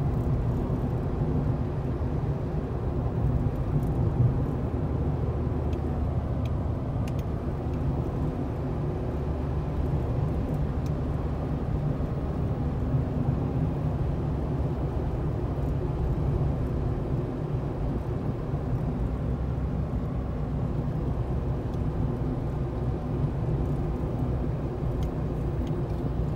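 Steady driving noise heard from inside a small car's cabin: a low rumble of tyres on the road and the engine at cruising speed, with a few faint ticks.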